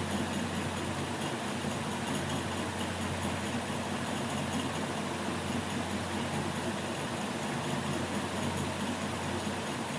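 A steady, unchanging low mechanical hum with an even background hiss.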